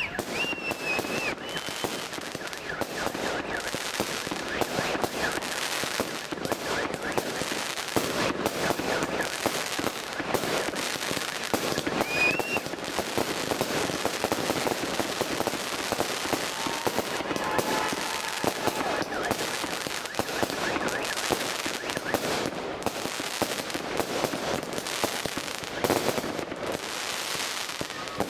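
Aerial fireworks firing and bursting in rapid succession, a dense crackle of many small pops and reports.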